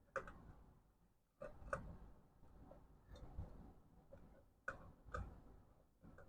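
A handful of faint, sharp clicks and light taps at irregular intervals, from hand work with tools and wiring on a motorcycle's electrical connections.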